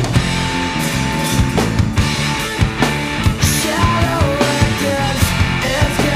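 Rock band recording playing a passage without vocals: busy drum kit, bass and electric guitar, with held and sliding guitar notes over the drums.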